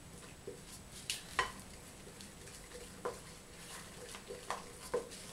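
Wooden spoon stirring a thick, creamy yeast starter of milk and flour in a large glass bowl, with light, irregular clicks and taps of the spoon against the glass.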